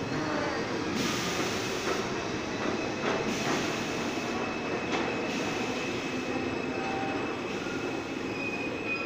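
R42 subway train pulling out of the station and running off into the tunnel: a steady rumble of steel wheels on rail, a few knocks over the rail joints, and a faint, thin wheel squeal.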